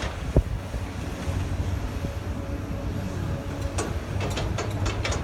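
Low outdoor rumble of wind on the microphone and distant heavy equipment working across the rail yard. A sharp bump comes about half a second in, and a quick run of clicks and knocks follows near the end.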